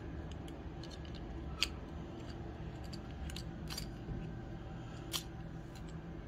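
Small sharp clicks and ticks of a die-cast toy car's metal and plastic parts being handled and pried apart, a few scattered clicks with the loudest about a second and a half in.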